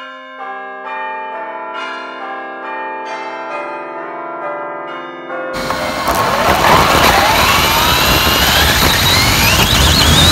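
Chiming bells play a short melody of ringing notes struck one after another. About five and a half seconds in, this cuts to a loud car engine accelerating hard, its pitch climbing steadily, with heavy wind and road noise.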